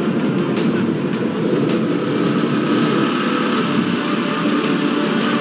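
Steady engine and road noise of a vehicle moving at speed on a highway.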